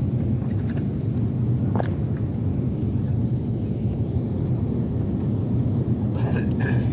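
Steady low rumble of an Airbus A330 heard from inside the passenger cabin, the engine and airflow noise of the airliner. There is a faint click about two seconds in and two short higher sounds near the end.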